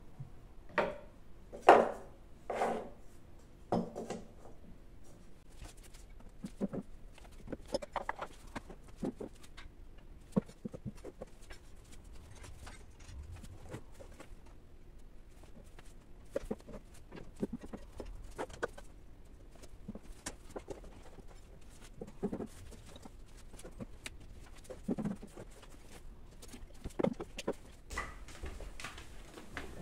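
Light knocks and clicks of decorations being set down and shifted about on a shelf: a vase, a glass candle jar and a wooden tray. The loudest knocks come in the first few seconds, then smaller scattered taps.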